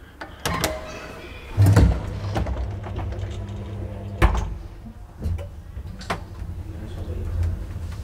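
Elevator car's sliding doors closing: a heavy clunk about two seconds in, a sharp click near the middle and a few lighter knocks. Under them runs a steady low hum of the elevator machinery.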